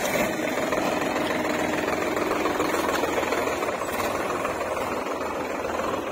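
Sonalika Tiger tractor's diesel engine running steadily as the tractor drives.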